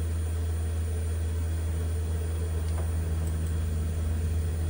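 Steady low electrical hum from the running iMac G3, with a faint click near the middle.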